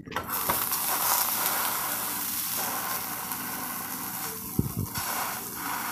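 Halved French bread roll sizzling in melted butter in a hot frying pan as it is laid in and pressed down by hand. The sizzle starts suddenly and holds steady, with one brief low thump a little after the middle.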